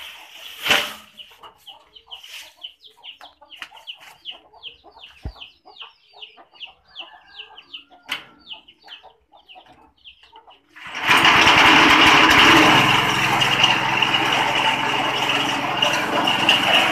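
A chicken clucking in a quick series of short calls; about two-thirds of the way in, a small gasoline engine-driven grass chopper comes in suddenly, running loud and steady with an engine hum under a dense whirring clatter.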